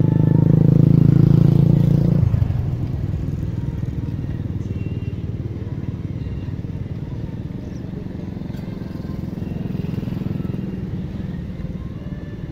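A motorcycle engine running close by, loudest at the start, then cutting down sharply about two seconds in, after which a lower steady engine rumble carries on.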